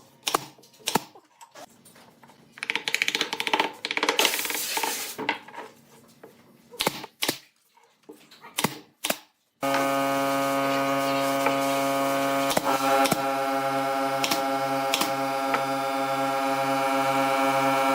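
Workshop sounds: sharp clicks and knocks of wood and tools being handled, with a short hissing stretch, then a power tool's motor starts abruptly about halfway through and runs at a steady pitch, with a few taps over it.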